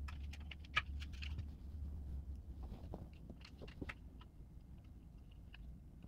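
Light clicks and rattles of an Elegoo Neptune 4 tool head's plastic housing and small parts being handled as it is taken apart. The clicks come scattered, thicker in the first two seconds, over a low hum that fades out partway through.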